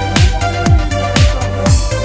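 Electronic dance music with a steady kick drum, about two beats a second, over held synth chords.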